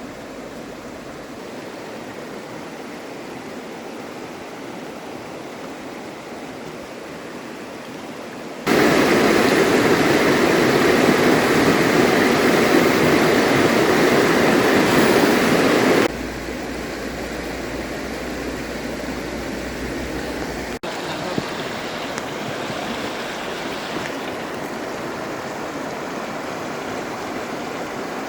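Fast-running river water rushing steadily over rocks. It jumps suddenly louder about nine seconds in and drops back about sixteen seconds in, as if heard from closer to the current.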